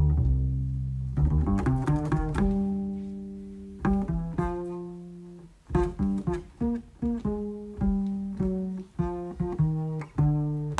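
Jazz double bass plucked in a slow, bluesy line together with a hollow-body electric guitar, each note struck and left to ring and fade.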